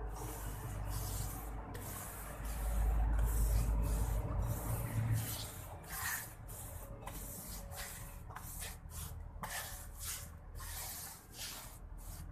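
Wide flat paintbrush rubbing over a rough plastered pillar in repeated, irregular strokes, the bristles swishing against the surface. A low rumble runs under it from about two to five seconds in.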